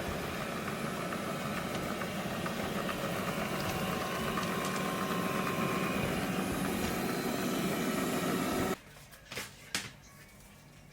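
A steady, machine-like whirring noise that cuts off abruptly near the end, followed by two short clicks.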